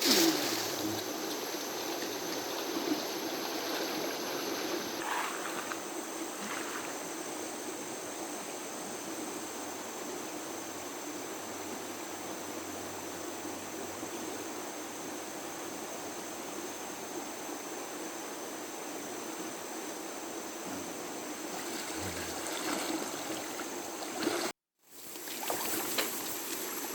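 A clear, shallow river running over stones: a steady rush and trickle of water, with a louder splash right at the start.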